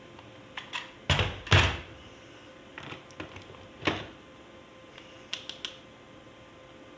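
Toys and their packaging being handled: scattered light clicks and taps, two louder thunks in quick succession about a second in, and another sharp knock near four seconds.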